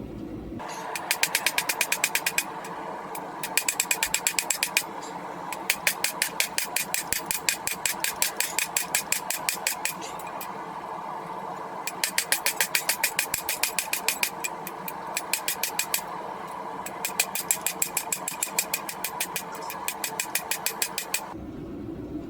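A power hammer running steadily and striking hot steel in five rapid bursts of about six blows a second, with short pauses between bursts. The machine stops shortly before the end.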